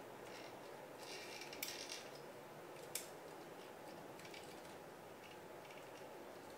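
Plastic parts and joints of a 1/60 Perfect Grade Gundam Mk-II model kit clicking and crackling faintly as they are moved by hand. Two sharper clicks come about a second and a half in and again about three seconds in, with a few lighter ticks after.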